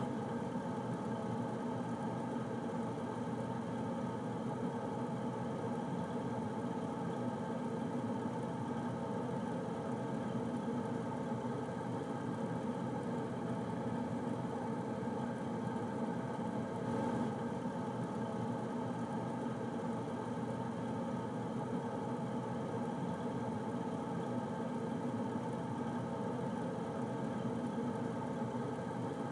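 Air conditioner running steadily: an even whir and hum with a faint hiss of moving air.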